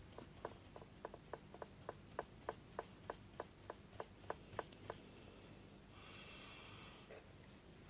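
A brush scrubbing dust off a Shindaiwa T270 trimmer's air filter housing in quick, even strokes, about four a second, stopping about five seconds in. A brief softer rub follows about a second later.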